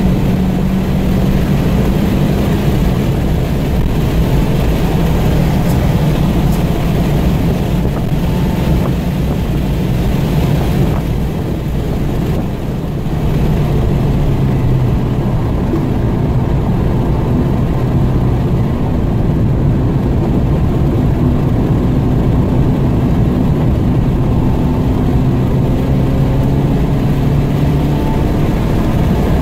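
Car engine heard from inside the cabin, running hard at high revs in third gear over tyre and wind noise. Partway through, the revs and loudness dip as the car brakes for a corner, then the engine note climbs steadily as it accelerates out.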